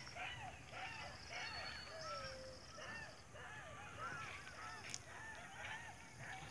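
Many birds calling over one another: a dense, continuous chatter of short rising-and-falling calls.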